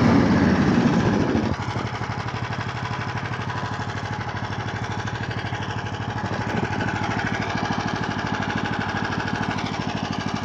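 Small single-cylinder engine of a DraXter motorized snow tug running under throttle, then dropping suddenly about a second and a half in to a slower, evenly pulsing near-idle beat, which picks up a little about two thirds of the way through.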